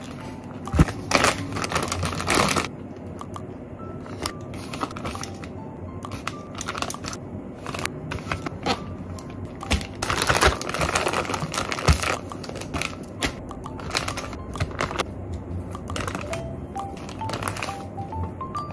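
Plastic zip-top freezer bags crinkling and rustling as raw meat is portioned into them, densest about ten seconds in, over light background music. Stacked dishes knock together in the first few seconds.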